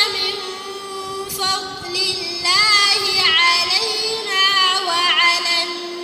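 A young woman reciting the Qur'an in melodic tajweed chant into a microphone, in several long phrases with held, ornamented notes and short breaths between them.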